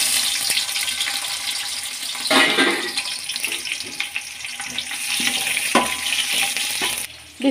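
Sliced onion and garlic sizzling in hot oil in a metal pot, with a couple of short scrapes of a ladle stirring them.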